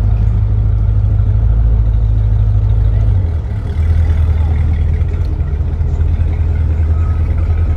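Boat engines idling, a steady low rumble whose pitch shifts about three seconds in.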